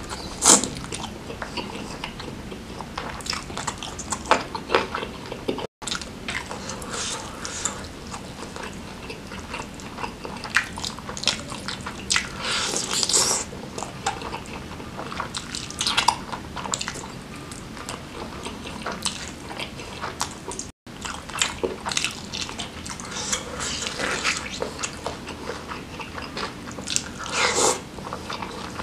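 Close-up mouth sounds of a person eating spicy grilled chicken with sambal: chewing and sucking the meat off the bones, in irregular wet clicks and slurps.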